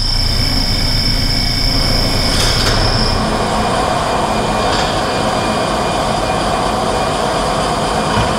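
A loud, steady mechanical rumble and grinding from the projection show's sound-effects soundtrack. A high, steady screech rides over it and stops about three seconds in.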